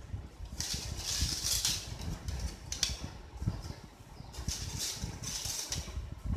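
Rustling and light crinkling of thin aluminium butterfly cut-outs, made from soda cans, as they are picked up and shuffled by hand, in several short spells, with soft low knocks of the pieces and hands against the table.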